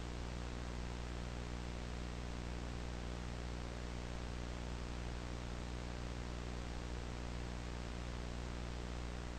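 Steady television static: an even hiss over a low, buzzing electrical hum, unchanging throughout.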